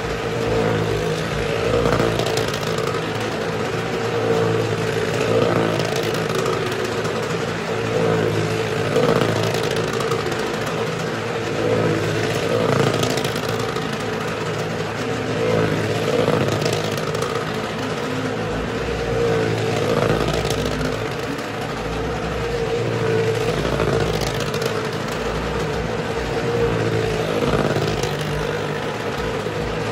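Motor vehicle engines running inside a wooden well-of-death drum, a steady drone that swells and fades about every three to four seconds.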